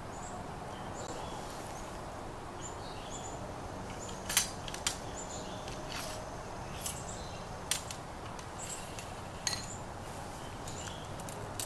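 Sharp metallic clicks and clinks, about six of them spread out and the loudest about four seconds in, from a flintlock musket being handled for inspection of arms, its ramrod drawn and set into the barrel. Birds chirp faintly over a steady outdoor background.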